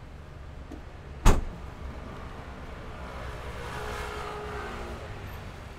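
A single sharp clunk about a second in, the SUV's tailgate latch releasing, then a rush of noise that swells and fades over a couple of seconds.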